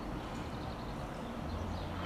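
Class 172 diesel multiple unit's underfloor diesel engines running with a steady low hum as the train approaches slowly, a few birds chirping faintly.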